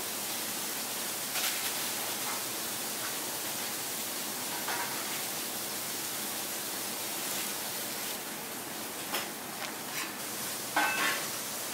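Steady hiss of commercial kitchen background noise, with a few faint clicks and clinks of handling, the loudest near the end.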